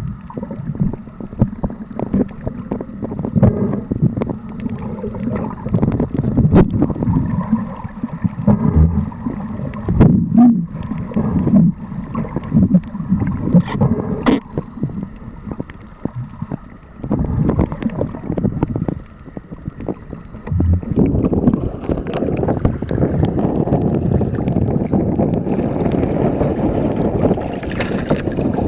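Muffled, uneven water noise with gurgling and scattered small clicks, as picked up by a camera in a waterproof housing during spearfishing. About two-thirds of the way in, it turns into a steadier, fuller rush.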